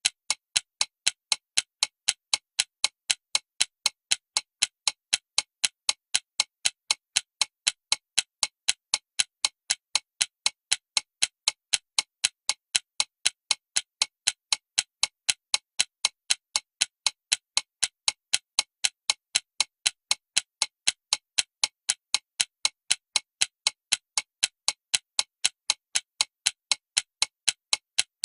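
Alarm clock ticking: short, sharp, high-pitched ticks repeating evenly, about three a second, without a break.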